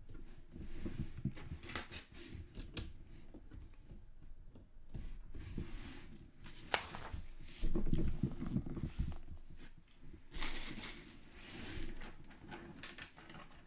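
Plastic Lego bricks clicking and clattering as loose pieces are picked through and pressed onto the model, with a stretch of rustling and handling noise from the paper instruction booklet partway through.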